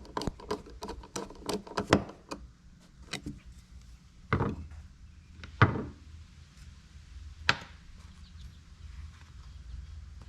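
Small engine parts being handled and fitted during reassembly: a quick run of light clicks over the first two seconds, then a few separate knocks spaced a second or two apart.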